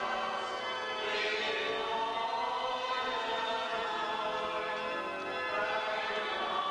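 Church congregation singing a hymn together, in long held notes.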